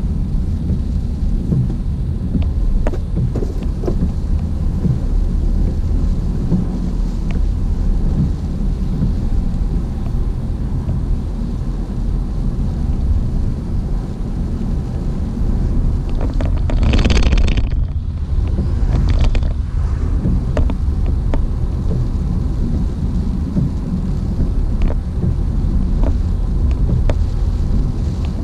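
Car driving in heavy rain: a steady low rumble of road and rain noise, with faint scattered ticks. About two-thirds of the way through, a louder hiss lasts for about a second.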